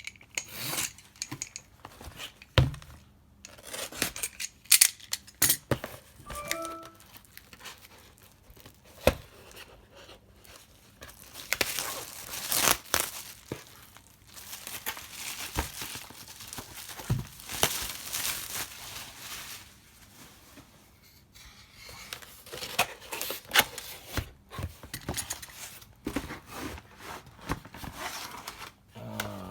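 A cardboard box being torn open by hand, with packaging crinkling and scattered knocks and clicks as the contents are handled.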